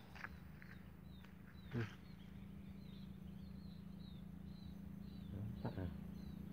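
Faint outdoor ambience: a bird repeating short, high, falling chirps a few times a second over a steady low hum, with a single knock about two seconds in.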